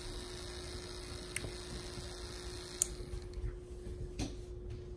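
Three faint clicks about a second and a half apart over a steady hum, as an NE555 timer relay module switches a small 3-volt fan on.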